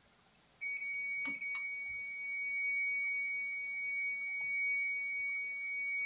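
Digital multimeter giving a steady, high single-pitched beep that starts about half a second in and holds without a break, with two sharp clicks about a second in.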